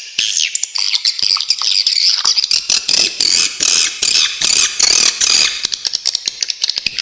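Swiftlets calling: a loud, unbroken stream of rapid, sharp high-pitched chirps and twittering trills.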